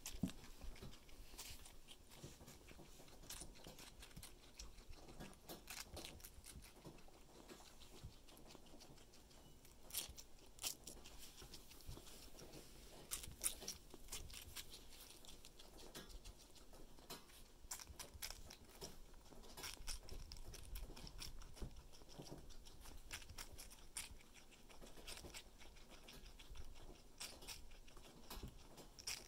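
Guinea pig chewing and biting watermelon: faint, irregular wet clicks of its teeth on the fruit.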